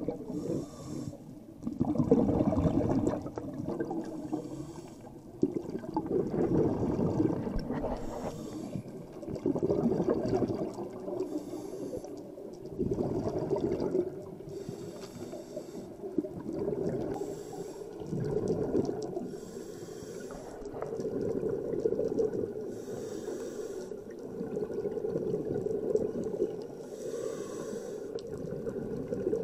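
Scuba diver breathing on a regulator underwater: a short hiss from the regulator alternating with a longer rush of burbling exhaled bubbles, repeating about every three to four seconds.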